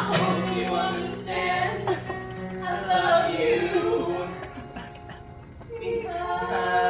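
A song from a stage musical: singing over instrumental accompaniment, quieter about five seconds in and swelling again near the end.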